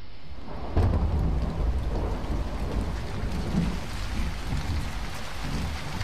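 A thunderclap about a second in, its low rumble rolling on over steady rain.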